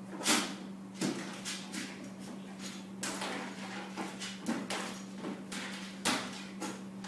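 Irregular knocks and clatters of a small dog pawing and scrabbling at a plastic pet carrier, the loudest about a third of a second in. A steady low hum runs underneath.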